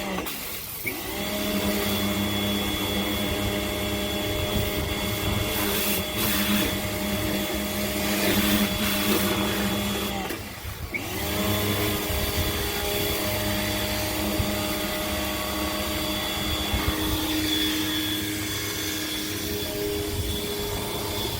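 Electric GreenWorks 1700 psi pressure washer's motor and pump running steadily with a whine. Twice, about half a second in and about ten and a half seconds in, it briefly winds down and picks back up.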